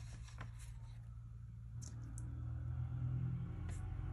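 A few faint, sharp clicks of sticker sheets and paper being handled, over a steady low hum.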